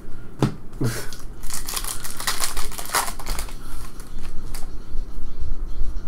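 A stack of trading cards being flipped and slid through the hands: two sharp card snaps in the first second, then a quick run of crisp clicks and rustling, and a few more snaps.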